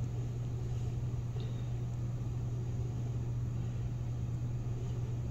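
Steady low hum with a faint even hiss: room tone. Drawing the syringe plunger back makes no distinct sound.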